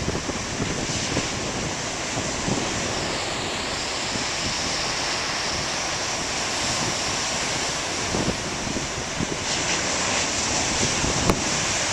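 Ocean surf from big waves breaking steadily, with wind buffeting the microphone. A single sharp click sounds near the end.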